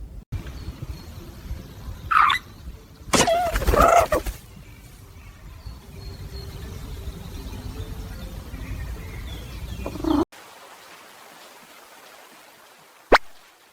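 Two short animal calls, the second louder and longer, over a low rumble. The rumble cuts off about ten seconds in, and a sharp click follows near the end.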